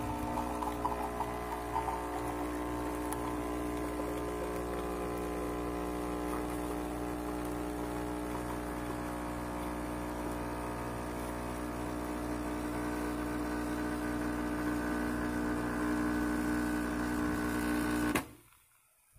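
Pump of a Nescafé Dolce Gusto capsule coffee machine running steadily as it dispenses into a cup: a buzzing hum over the sound of liquid pouring. It cuts off suddenly near the end when the dispense finishes.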